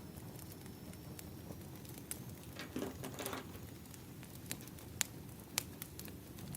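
Wood fire crackling: a soft steady burning hiss with scattered sharp pops and snaps. The sharpest pops come about five seconds in and again about half a second later.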